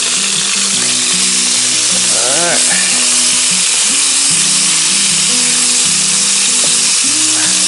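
Boneless chicken thighs sizzling steadily in hot oil in a cast iron Dutch oven, stirred and turned over with a wooden spatula.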